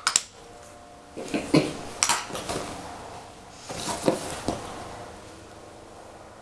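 Makeup items clicking and knocking together as a child rummages through a makeup bag: a handful of separate small knocks, a few grouped in the first half and two more a little past the middle.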